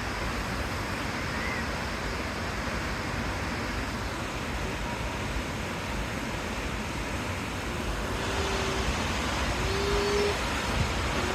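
Steady rush of a mountain stream or waterfall, growing a little louder about eight seconds in, with a few brief faint tones near the end.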